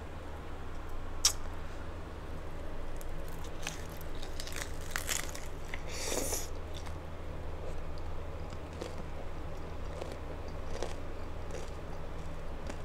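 Crunching bites into an Old El Paso Bold Nacho Cheese hard taco shell, with chewing in between. A single sharp crack comes about a second in, then a run of crunches that is loudest about six seconds in, then softer scattered crunches.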